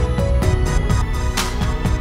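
Background music with a steady beat and a cymbal crash about one and a half seconds in.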